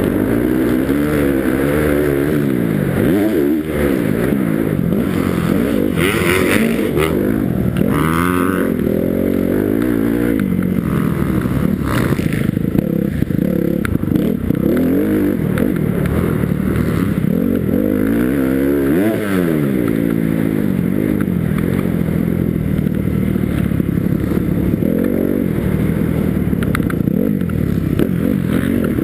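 Motocross dirt bike engine heard up close from the rider's helmet, revving up and dropping back over and over as the rider accelerates, shifts and backs off through the turns and straights of the track.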